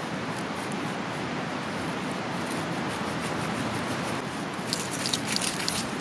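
Steady background hiss, then from about five seconds in a quick run of sharp crackling snaps as a knife cuts into the thick woody stalk of a kalette (flower sprout) plant.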